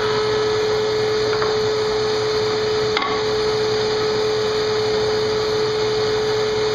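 Shop dust extractor hooked up to the miter saw running on with a steady hum after the cut, with a light knock of cut boards being handled about three seconds in.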